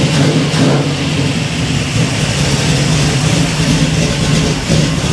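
1967 Chevrolet Camaro's carbureted engine idling steadily and smoothly, freshly started with the key on newly run wiring.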